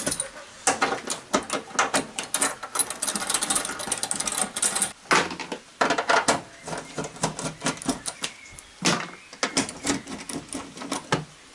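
Rapid ratchet clicking in quick runs with short pauses between, as bolts are being unscrewed by hand. The longest run comes first, then shorter runs about halfway through and near the end.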